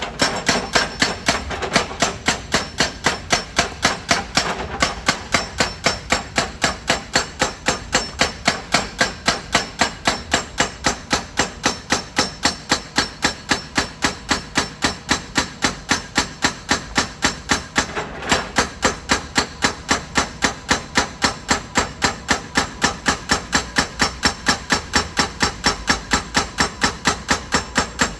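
Excavator-mounted hydraulic rock breaker hammering on stone, a steady rapid train of sharp metallic blows at about three to four a second without a break.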